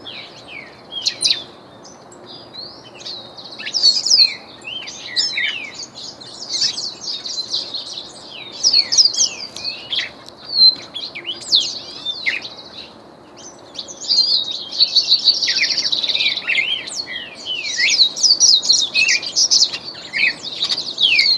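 Caged songbirds singing: a trained glaucous-blue grosbeak (reinamora) among them, giving rapid, overlapping high-pitched chirps and quick sliding whistles. The song grows fuller and louder about two-thirds of the way through.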